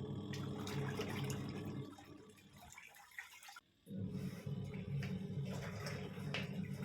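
Wash tub of a Ramtons 10 kg twin-tub washing machine agitating a duvet in soapy water: a steady motor hum with water sloshing. It fades off, stops briefly, then starts up again.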